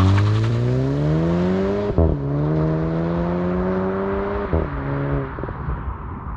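Stock exhaust of a 2022 Volkswagen GTI (MK8) and its 2.0-litre turbocharged four-cylinder at wide-open throttle in Sport mode. The engine climbs in pitch through the gears, with quick upshifts about two seconds in and again about four and a half seconds in, then fades as the car pulls away.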